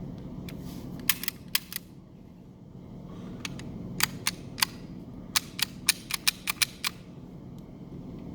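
Pistol shots fired in three quick strings: four, then three, then a rapid run of about eight, each a sharp crack. A steady low rumble runs underneath.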